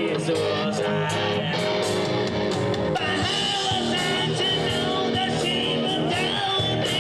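Live rock band playing, with electric guitar, drums and a singing voice; the voice comes in more strongly about three seconds in.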